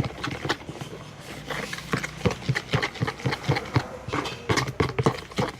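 Spoon knocking and scraping against a container while stirring a thick slime mixture: irregular clicks, several a second.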